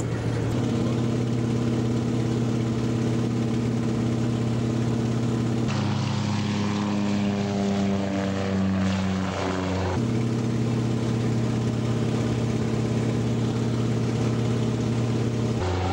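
Loud steady drone of an Antonov An-2's nine-cylinder radial engine and propeller, heard inside the cabin in flight. For a few seconds in the middle its pitch sags, then it steadies again.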